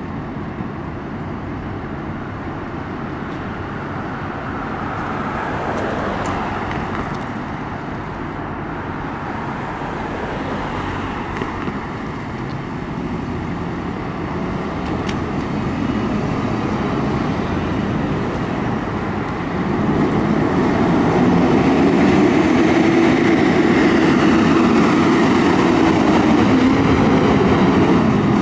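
Fire engine's diesel engine running at idle, then growing louder and revving about twenty seconds in as the truck pulls out of the station.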